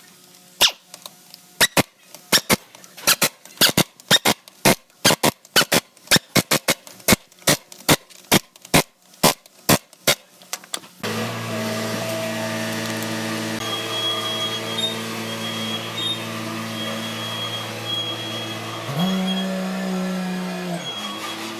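A run of sharp knocks, roughly two a second and unevenly spaced, lasting about ten seconds. Then an engine starts running steadily, revs up briefly near the end and drops back.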